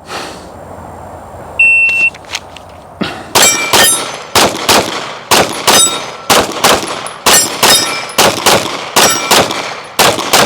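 Shot timer beeps once, then after about a second and a half a 9mm Glock 45 pistol fires in quick pairs, about fourteen shots, with steel targets ringing from the hits.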